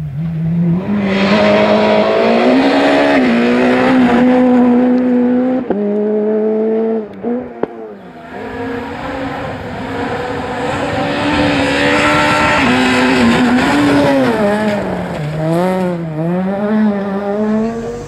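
Rally car engine at high revs, pitch climbing and falling with gear changes and lifts off the throttle. It drops out briefly twice around the middle, then swings rapidly up and down near the end.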